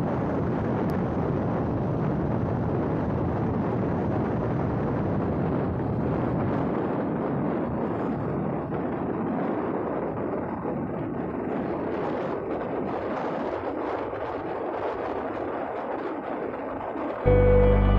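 Wind buffeting the microphone of a moving motorbike, a steady rushing that eases a little in the second half. Guitar music comes in near the end.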